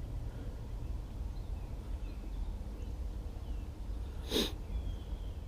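Outdoor ambience with a steady low rumble and a few faint high chirps, broken about four seconds in by one short breathy burst like a sniff or snort.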